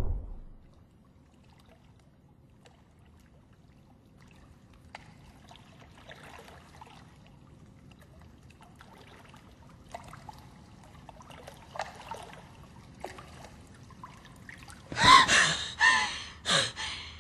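A loud swell of film score dies away, leaving faint underwater bubbling and trickling. About fifteen seconds in, a woman gasps hard for breath three or four times, waking startled from a drowning dream.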